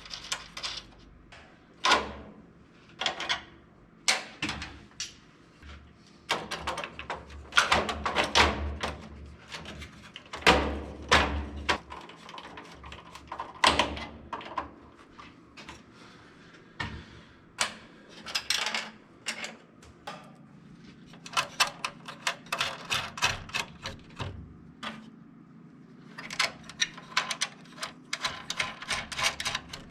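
Hand-tool work on an electrical service panel: irregular metallic clicks, knocks and short rattles, with bursts of rapid clicking.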